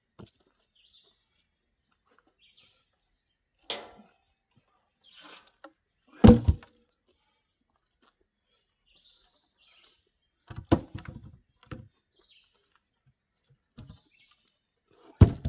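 Wooden knocks and thuds as firewood pieces are set in place for cutting: a single knock, a heavy thud, a quick run of knocks, then another heavy thud near the end. Faint bird chirps between.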